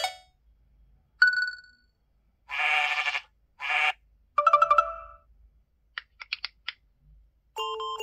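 A string of short phone ringtone and alert sounds from the ZTE Axon 40 Ultra's preset list, played one after another with gaps: a single chime about a second in, two short buzzy calls, a quick plucked run, a few rapid ticks, and a chord beginning near the end.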